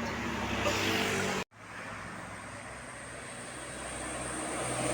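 Passing traffic with a large vehicle engine running. The sound cuts out abruptly about a second and a half in. It then returns with a steady high whine that grows louder near the end as a vehicle approaches.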